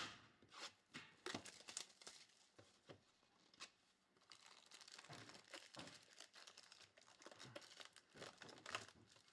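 Faint crinkling and tearing of trading-card packaging as hobby boxes and packs are opened, in many short irregular crackles.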